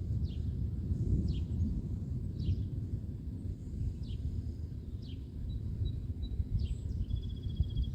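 Wind buffeting the microphone with an uneven low rumble. Over it a bird repeats a short falling chirp about once a second, and a fast even trill comes in near the end.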